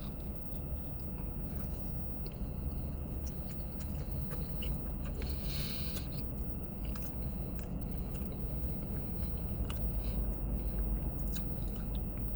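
A person chewing and biting food close to the microphone, with small scattered clicks, over a low steady rumble.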